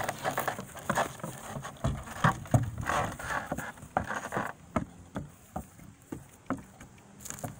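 A horse's hooves knocking on wooden boards as it walks across a raised plank obstacle: slow, uneven hollow knocks, about two a second.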